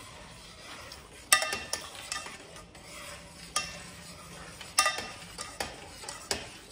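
Eggnog mixture being stirred in a black frying pan on the stove: a utensil scraping through the creamy liquid, with a sharp knock against the pan every second or so, over a faint steady hiss from the pan.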